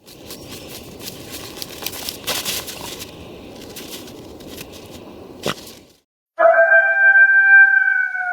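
A crackling, rustling noise with one sharp crack about five and a half seconds in, which then cuts off; after a short gap a wolf starts a long howl, one held tone that sinks slightly in pitch.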